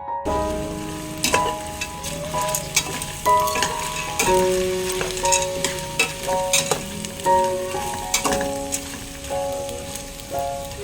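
Food frying in a pan, crackling and sizzling with occasional stirring clicks, under background instrumental music with a simple melody of held notes.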